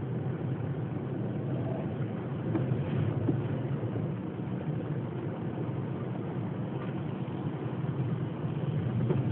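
Steady low rumble inside a car with its engine running.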